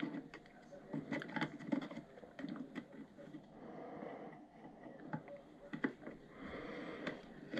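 Scattered light clicks and scrapes of an airsoft rifle's plastic stock and its small battery cover being handled and pushed into place, with the cover not yet sitting flush.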